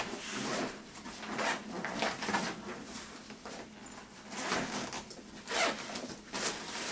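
Packaging being handled and opened while unboxing paintball gear: a series of short, scratchy rasps and rustles, roughly one or two a second.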